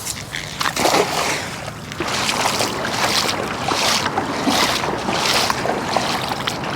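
Lake water splashing and sloshing in repeated surges, about one or two a second, with wind on the microphone.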